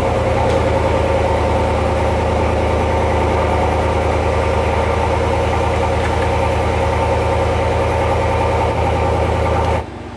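Chevrolet Silverado's gasoline V8 idling steadily with the hood open. Its oil catch can hoses have been wrapped in insulation tape to damp a vacuum hiss, and the hiss is at most slight. The sound cuts off suddenly near the end.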